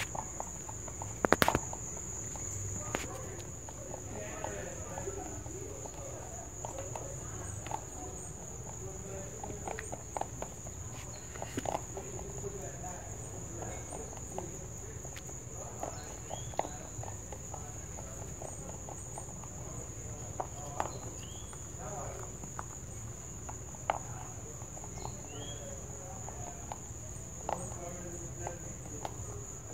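A rabbit crunching dry pellet feed from a ceramic bowl: irregular short, sharp crunches, with one louder knock about a second in. Behind it runs a steady high-pitched insect trill.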